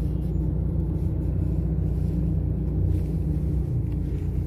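Steady low rumble of engine and road noise heard from inside the cabin of a moving car.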